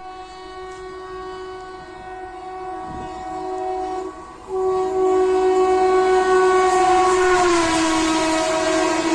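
Electric locomotive's air horn sounding a long, steady blast as an express train approaches and runs through the station. After a short break about four seconds in it is much louder, and near the end it drops in pitch as the locomotive passes. The rushing of the coaches rises beneath it.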